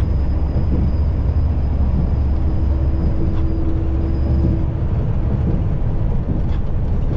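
Semi-truck cab interior while cruising on the highway: a steady, heavy low rumble of engine and road noise, with a faint hum coming in for a couple of seconds in the middle.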